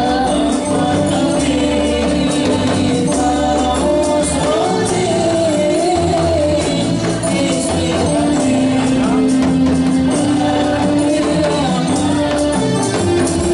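Samroh devotional music: a voice singing a wavering, ornamented melody over rebana frame drums and jingles, with held notes beneath.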